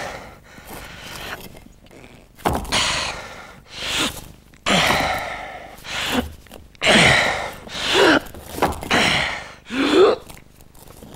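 A man's strained breathing under heavy exertion: about eight hard, breathy gasps and grunts, roughly one a second, some ending in short falling groans. These are the effort sounds of a man heaving a huge boulder.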